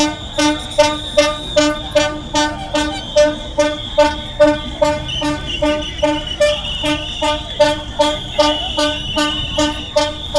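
A horn tooting over and over in an even rhythm, about two or three short toots a second, with a steady high tone running underneath.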